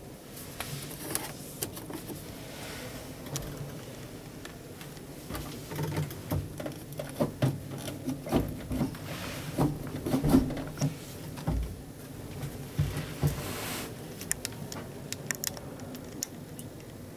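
Manual gear lever of a Dacia Duster rally car being worked by hand, giving a run of short clicks and clunks that are densest in the middle stretch, over handling noise inside the cabin.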